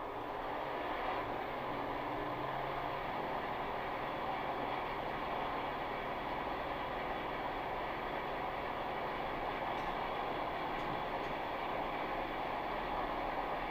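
Milling machine with an angle head running a drill into the end of a steel truck tie rod: a steady whirring, grinding machining noise.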